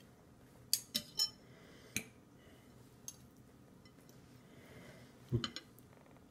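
Metal fork clinking against a dish while food is picked up: a quick run of four clinks in the first two seconds, a faint tick a second later, then a few knocks about five and a half seconds in as the forkful is brought up.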